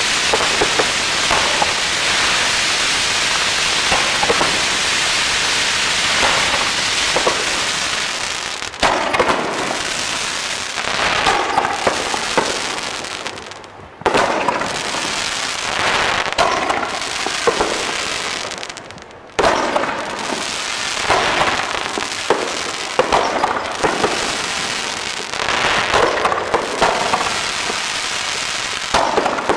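Fireworks: a dense crackling hiss of low spraying fireworks, then from about nine seconds in, repeated aerial shell bursts with sharp bangs and crackle. The sound fades away twice and comes back suddenly.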